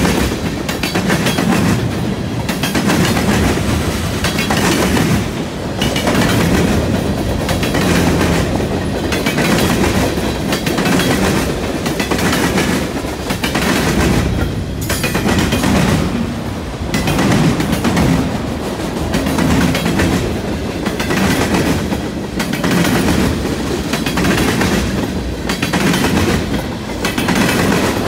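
Freight cars of a long freight train rolling past close by, their steel wheels rumbling and clacking over the rails. The sound swells and dips every couple of seconds as each car goes by.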